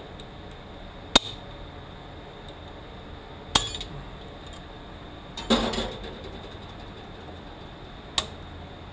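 Sharp metallic clicks and clinks of hand tools and small steel parts on a manual transmission being taken apart, as its front snap rings come off. Four separate hits, the third a short rattle.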